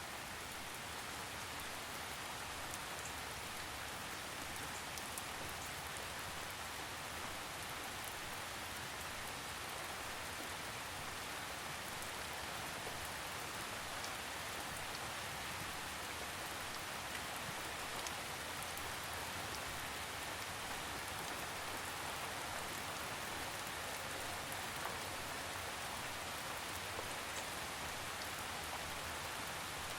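Steady rain falling, an even hiss of many drops, with occasional single drops ticking more distinctly.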